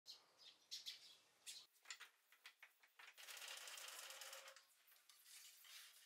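Sparrows at a bird feeder, faint: short, sharp chirps through the first few seconds, then a rushing burst of about a second and a half near the middle, such as a flurry of wings.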